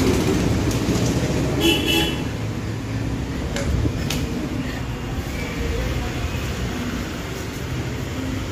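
Steady street traffic noise with one short, high vehicle-horn toot about two seconds in. Two sharp clicks follow a couple of seconds later.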